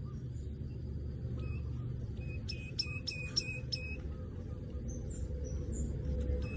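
Manyar weaver bird (golden-headed manyar) giving its dry 'cret-cret' chattering call: a few single notes, then a quick run of about six short clicky notes a little past halfway. A steady low hum runs beneath.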